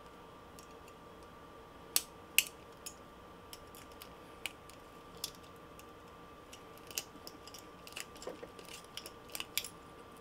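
Small metal clicks and ticks of split-ring pliers prying open a steel split ring and working it onto a treble hook's eye. Two sharper clicks come about two seconds in, then scattered lighter ticks.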